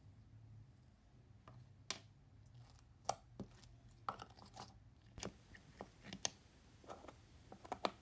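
Slime being squeezed and poked by hand, giving an irregular run of small clicks, pops and crunches over a faint low hum.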